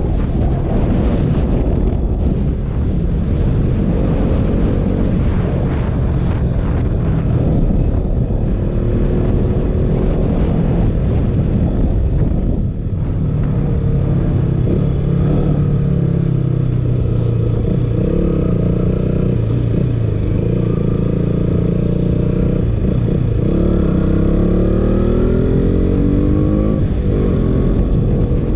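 KTM RC 200's single-cylinder engine running under way, with the revs climbing through the gears several times near the end.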